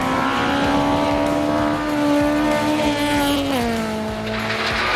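Honda Civic rally car's engine, heard from inside the car at speed on gravel. The engine note climbs slowly under load, then drops at an upshift about three and a half seconds in and holds, over a steady rush of tyre and gravel noise.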